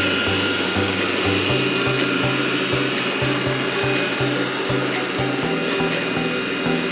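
Roborock robot vacuum running with a steady motor whir after its laser distance sensor (LDS) was replaced, under background music with a stepping bass line and a regular beat.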